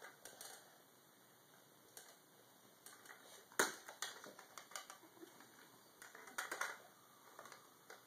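Scattered light clicks and knocks of plastic toys being handled on a carpeted floor, with a sharper knock about three and a half seconds in and a quick run of taps a little after six seconds.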